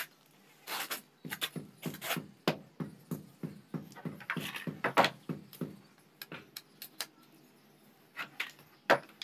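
Clicks and knocks from a yellow plastic-bodied DeWalt angle grinder, its cord and a screwdriver being handled and set down on a wooden plank. There is a quick run of knocks through the first half, then a few scattered clicks.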